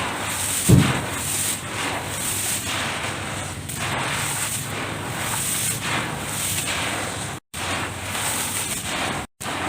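Close-up crackling and crunching of dry dirt being crumbled and mixed by hand, in repeated swells about every half second to a second, with a low thump about a second in. The sound cuts out briefly twice near the end.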